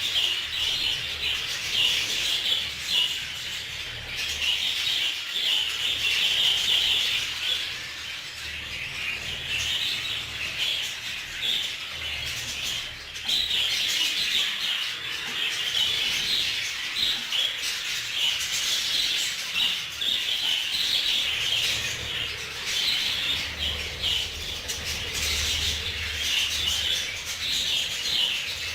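A colony of budgerigars chattering and warbling together: many birds at once, a constant dense twittering that never pauses.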